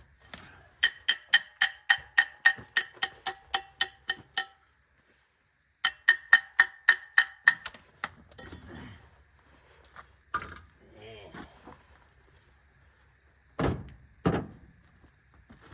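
Ratchet wrench clicking in quick, even strokes, about four a second, as the wheel nuts are run on; two runs, with a pause between. Two heavy thumps near the end.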